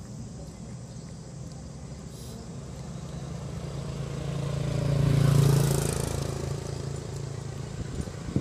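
A motor vehicle passing by: its engine grows louder to a peak about halfway through, then fades away.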